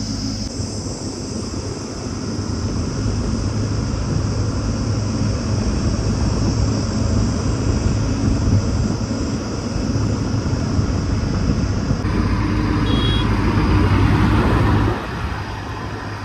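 JCB backhoe loader's diesel engine running steadily, working harder and louder about twelve seconds in, then dropping back suddenly near the end.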